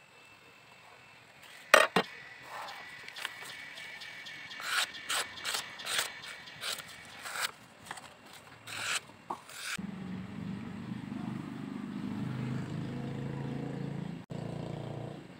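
Short rubbing and scraping strokes at a wet sharpening stone, with a paper towel wiping over it, led by two loud knocks. About ten seconds in, background music with a low, steady synthesizer tone takes over.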